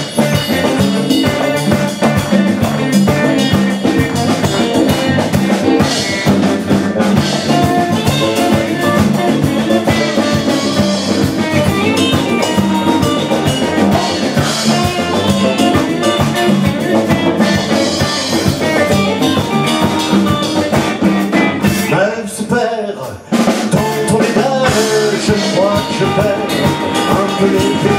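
A live band playing an instrumental passage with electric and acoustic guitars over a drum kit. About three-quarters of the way through, the music drops out briefly and then comes back in.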